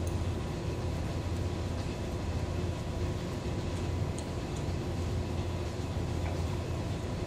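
Steady low hum of room machinery, with a faint steady whine above it and a few faint ticks.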